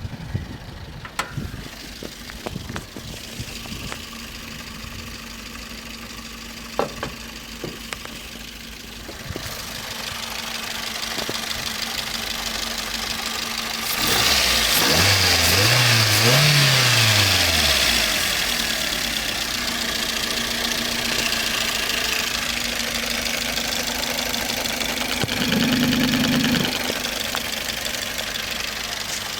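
Toyota Vitz's 1SZ-FE four-cylinder petrol engine idling with a diesel-like knock, sharp ticks standing out in the first few seconds. It is revved up and down twice in the middle and blipped once briefly near the end. The owner says the knock fades at times and then comes back.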